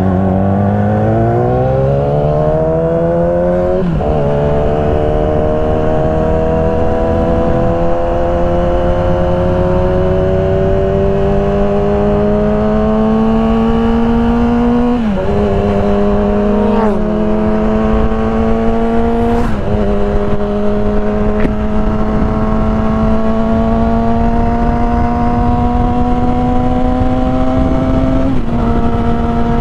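Motorcycle engine heard from the rider's own bike, pulling away and accelerating through the gears. Its pitch climbs steadily, then drops abruptly at each upshift, about five times, over a steady low rush of road and wind noise.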